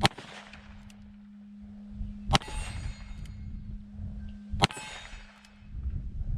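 Three shots from a Ruger Blackhawk Bisley single-action revolver in .45 Colt, fired about two and a half seconds apart. Each shot is followed by a metallic ringing tail.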